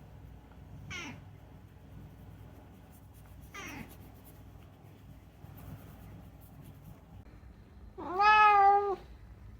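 Domestic cat meowing: two short, quieter calls falling in pitch about one and three and a half seconds in, then one loud, drawn-out meow lasting about a second near the end.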